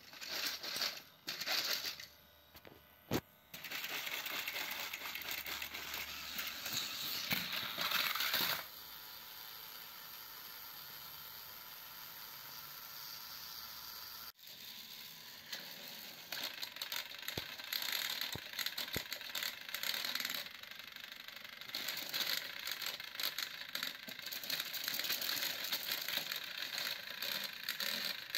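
Battery-powered plastic toy train engines running on plastic track: a steady whir of small motors and gears with dense plastic rattling and clicks. A few sharp clicks come in the first seconds, and the sound changes abruptly about halfway through.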